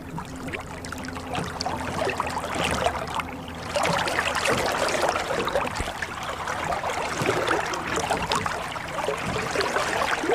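Oars splashing and water dripping and trickling as a rowboat is rowed, the splashing growing louder about four seconds in. A faint low steady hum sits under the water during the first few seconds.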